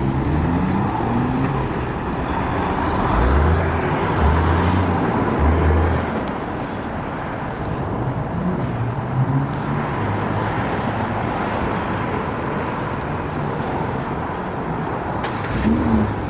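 Road noise from a car driving, with the engine rising in pitch as it speeds up near the start.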